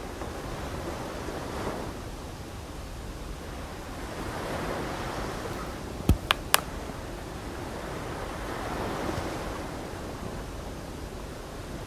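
Sea surf washing up a sandy beach, the wash swelling and fading every few seconds. Three sharp clicks in quick succession about six seconds in.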